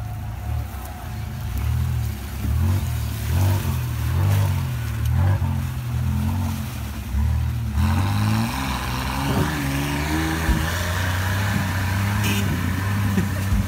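Engine of a lifted, mud-covered Jeep-style buggy revving repeatedly as its big mud tires churn through a bog, the pitch rising and falling in surges with one long climb about halfway through. A couple of sharp knocks come near the end.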